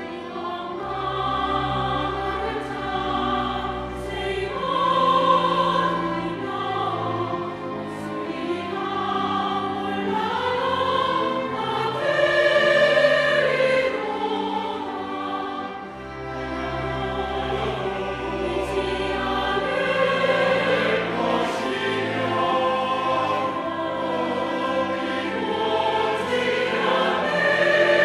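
Large mixed church choir singing an anthem in Korean, in full voice, over instrumental accompaniment that holds long low bass notes.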